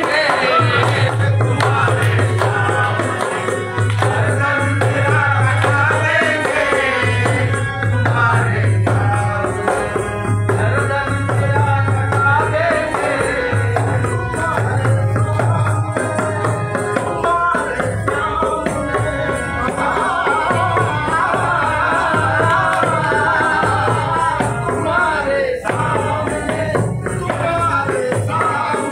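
Live qawwali: male voices singing to harmonium accompaniment over a steady rhythmic beat.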